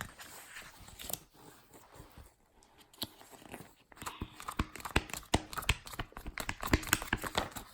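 Paper being handled close to the microphone: rustling and crinkling with scattered clicks and taps, like the pages of a book being turned. The clicks grow busier about halfway through.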